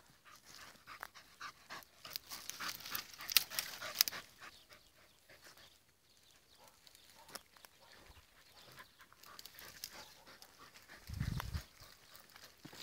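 Podenco hunting dogs panting while working through dry scrub, with brittle twigs and brush crackling and rustling throughout. A brief low thump about eleven seconds in.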